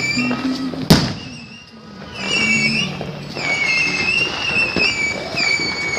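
Fireworks going off: one sharp bang about a second in, then several high whistling tones, each held for about a second and wavering slightly.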